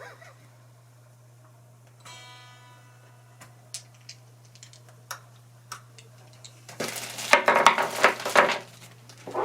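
Ibanez RG electric guitar, unplugged: one string rings out about two seconds in and fades, followed by a few clicks, then a quick run of metallic clinking and rattling as the guitar's hardware is handled during disassembly.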